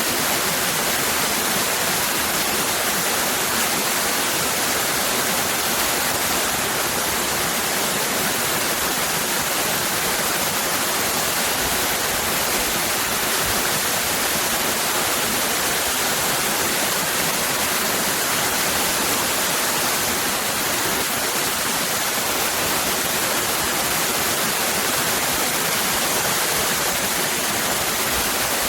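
Waterfall cascading: a steady, even rush of falling water with no change.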